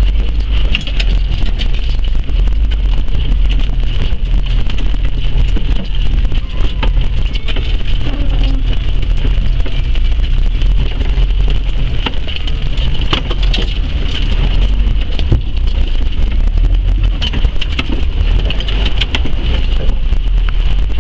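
Off-road vehicle's engine running at low speed, heard from inside the cab as a steady low rumble while it creeps through deep trail water, with scattered clicks and knocks.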